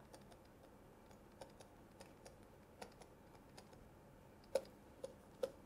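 Faint, irregular clicks and taps of a stylus writing on a tablet screen, a few louder taps about four and a half to five and a half seconds in.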